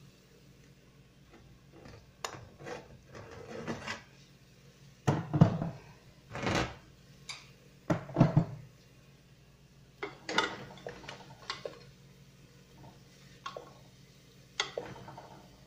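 Kitchen clatter of containers, lids and a wooden spoon being handled at the stove: an irregular string of knocks and clinks, loudest about five and eight seconds in.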